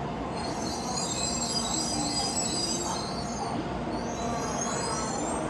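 Tokaido Shinkansen train at low speed through the station tracks, its wheels squealing in several shrill high tones over a steady low rumble. The squeal starts about half a second in and fades out near the end.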